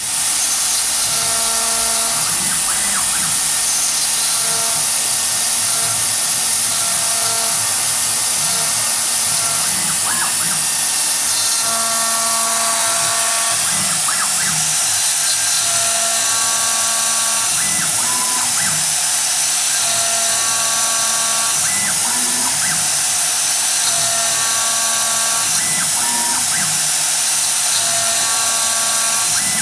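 2.2 kW CNC router spindle running at high speed with a steady high whine and hiss while it cuts. Over it, short steady tones from the axis motors come and go as the machine feeds through the cut.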